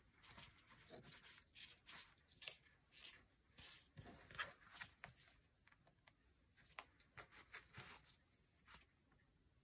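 Faint rustling and scraping of hands handling waxed linen thread and a fabric-covered hardcover book: a string of short brushing strokes, thick at first and thinning out about halfway through.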